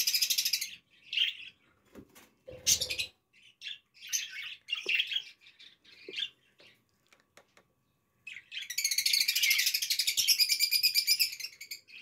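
Young budgerigars calling: short chirps scattered through the first seven seconds or so, then a long run of rapid, high chattering that stops shortly before the end.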